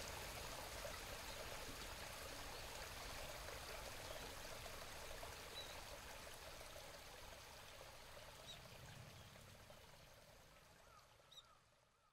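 Outdoor ambience: a steady rushing hiss, like running water, that fades out gradually, with a few faint bird chirps in the second half.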